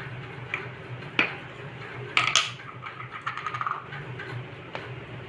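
Spoon clinking and scraping against a pot as spice powder is added: a few sharp clinks, a louder scrape about two seconds in, and a quick run of light taps.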